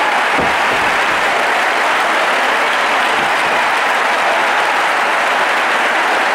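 Large arena crowd applauding, a dense, steady clapping that holds at one level throughout.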